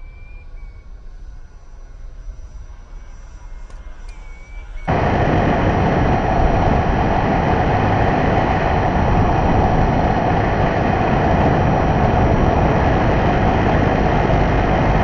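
R/C model airplane's motor and propeller: faint at first, then about five seconds in it suddenly turns loud and steady.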